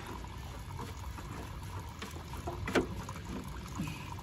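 A spin-on filter being handled and fitted in a backhoe loader's filter compartment: one sharp knock about three seconds in, over a low steady rumble.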